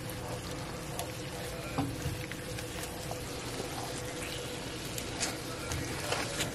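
Chicken and onions simmering in a creamy sauce in a skillet, bubbling, with scattered soft clicks and scrapes from a silicone spatula stirring the pan, over a steady hum.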